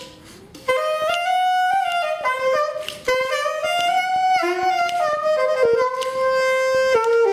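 Saxophone playing a slow melody of long held notes, pausing briefly at the start before the next phrase, with an acoustic guitar accompanying.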